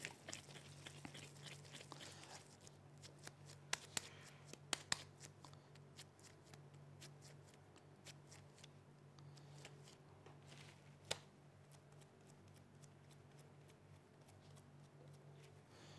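Faint handling sounds of gloved hands shaping minced chicken meatballs and setting them in a baking pan: soft rustles and scattered small clicks over a low steady hum. There are a few sharper clicks around four to five seconds in and one near eleven seconds.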